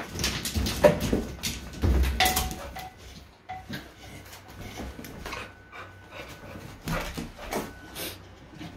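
A young dog scrambling over a plastic folding pet gate and onto a couch: knocks and rattles of the gate and paws, loudest and busiest in the first two or three seconds, then scattered lighter knocks.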